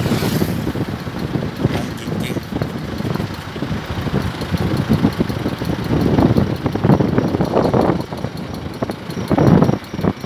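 Car's running and road noise, an uneven low rumble, recorded to catch a 'pok paek' popping noise from the front right wheel that the owner has not been able to trace.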